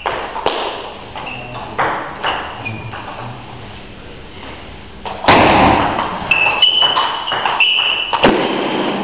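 Table tennis ball being struck and bouncing in a rally: short, high, ringing pings and knocks, with a loud thump about five seconds in and more pings after it.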